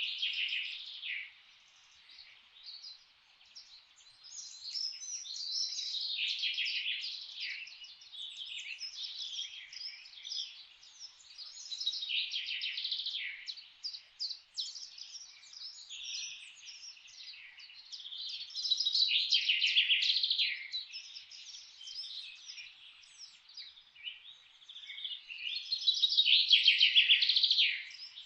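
Forest songbirds singing and chirping in overlapping phrases, with quick rapid trills. The song comes in waves, loudest about two-thirds of the way through and again near the end.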